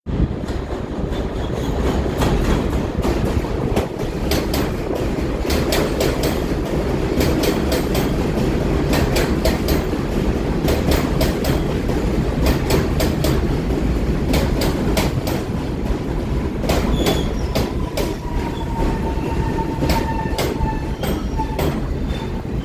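An R62 subway train pulling into the station: a steady rumble of the cars with many sharp clicks of wheels over rail joints, and a steady high squeal near the end as it slows.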